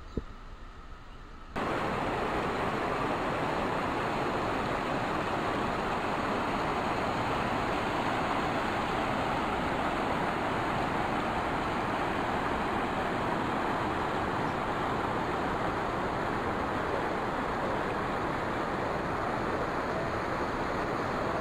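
Steady rushing of a waterfall, starting abruptly about a second and a half in after a quieter hiss.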